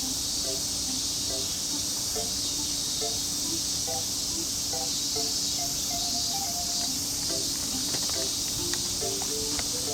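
A steady chorus of crickets chirring, with a faint simple melody of short notes underneath.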